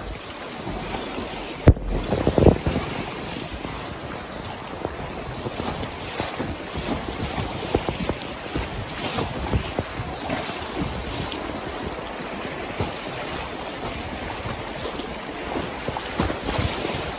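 Whitewater rapids rushing and splashing around an inflatable kayak, with many small irregular splashes. A sharp knock and a brief louder splash come about two seconds in.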